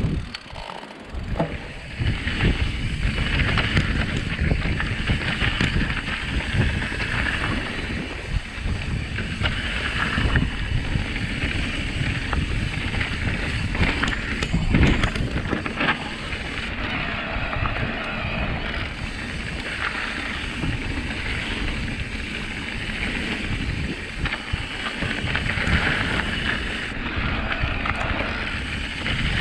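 Wind buffeting the microphone over the rumble of knobbly tyres on a forest trail as an electric mountain bike is ridden along, with a few sharp knocks of the bike jolting over bumps.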